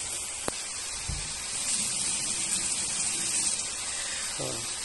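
Chicken thigh pieces frying in oil in a pan, a steady sizzling hiss. There is one small sharp click about half a second in.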